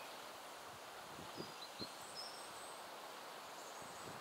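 Faint outdoor shoreline ambience: a steady soft hiss with a few brief, faint high bird chirps, and two soft low thumps about a second and a half in.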